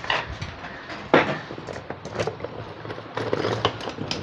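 A few scattered light knocks and clicks, irregularly spaced, the sharpest about a second in and a cluster a little past three seconds.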